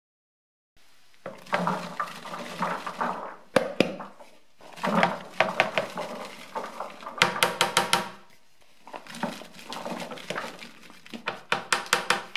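Raw diced Big Max pumpkin cubes tumbling out of a plastic bowl into a plastic mash bucket, three pours of rattling clatter with a few sharp knocks in between.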